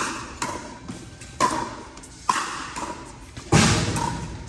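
Pickleball paddles striking a plastic pickleball in a rally: sharp pops about a second apart, the loudest and heaviest about three and a half seconds in.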